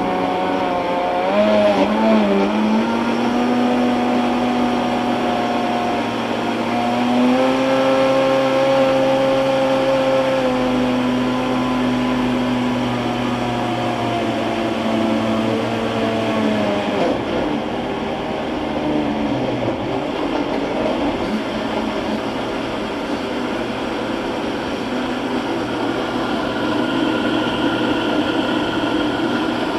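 Philips blender running in its quiet mode, blending soft fruit, yogurt and juice into a smoothie: a steady motor hum with a whir. About halfway through the pitch drops and the steady tone gives way to a more even rushing sound.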